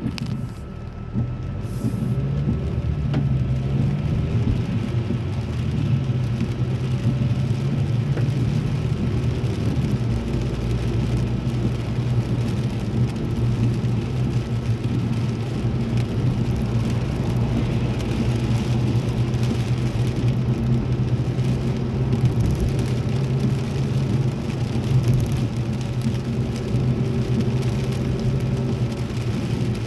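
Car driving in heavy rain, heard from inside the cabin: a steady low drone of engine and tyres with the hiss of rain on the car. The sound grows louder about two seconds in, then holds steady.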